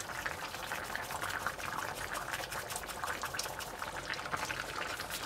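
Thick chicken curry and rice stew bubbling well in a stainless steel pot on the hob: a steady run of small pops and bubbles.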